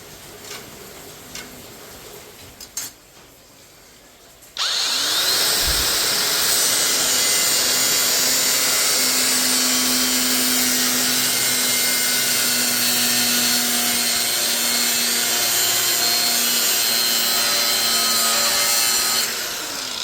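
A handheld power tool starts with a rising whine about four and a half seconds in. It runs loud and steady for about fifteen seconds while cutting or grinding metal, then winds down near the end. A few light knocks come before it starts.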